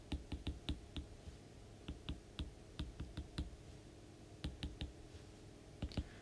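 Stylus tip tapping and clicking on a tablet's glass screen during handwriting: faint, sharp ticks in short irregular runs with pauses between them.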